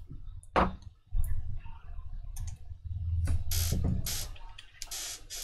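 Clicks and knocks of small tools being picked up and set down on a workbench, with low handling rumble and a few short hissy bursts in the second half.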